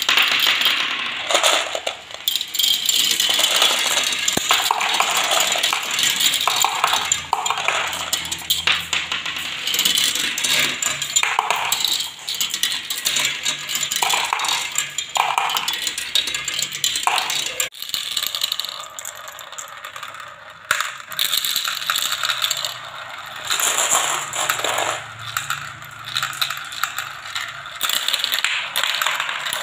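Many small marbles clattering down a plastic marble run: rolling along plastic rails and tracks, dropping through tubes and spinning around plastic funnels, a dense, unbroken stream of quick clicks and rattles.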